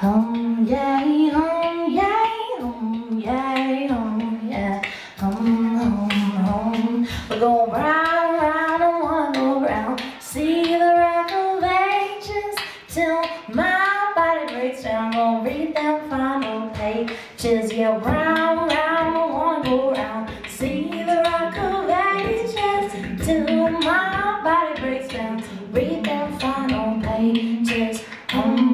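A woman singing melodic vocal lines over a steady beatboxed rhythm of sharp clicks, the voice and beat layered with a live vocal looper.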